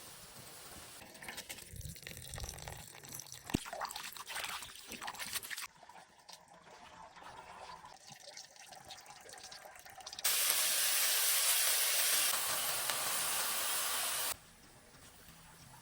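Light clatter and knocks for the first few seconds. Then, about ten seconds in, water runs or pours in a loud steady stream for about four seconds and stops abruptly.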